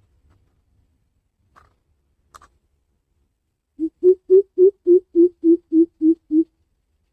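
Greater coucal giving its deep booming call: a run of about ten hollow hoots, about three and a half a second, falling slightly in pitch toward the end.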